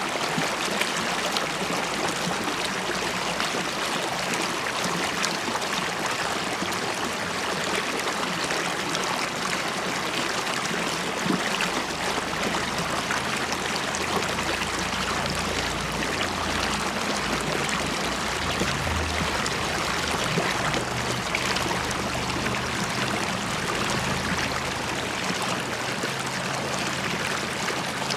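River water flowing and burbling steadily over stones, with a faint low rumble in the middle.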